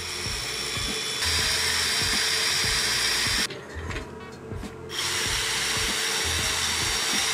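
Cordless drill running with no load, spinning a bit inside a template's drill spindle. It gets louder about a second in, stops for a second and a half around the middle, then runs again.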